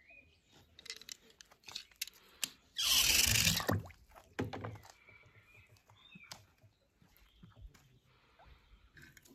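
Water being stirred and splashed, with one louder splash or rush of water about three seconds in, among scattered light clicks and knocks.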